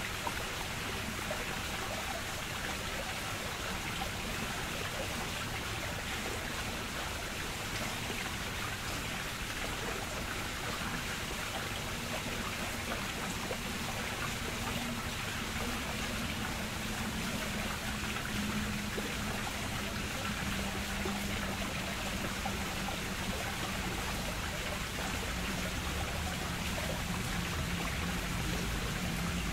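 Steady rush of flowing water in a Japanese garden, an even unbroken wash of sound. A low steady hum joins about ten seconds in.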